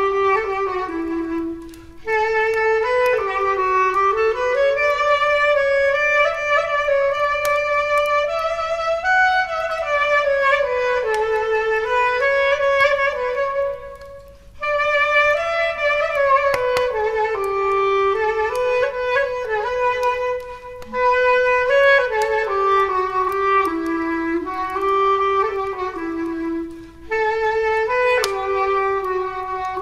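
A clarinet playing a slow single-line melody in phrases, with short breaks between them, over faint crackling from a wood fire in a fireplace.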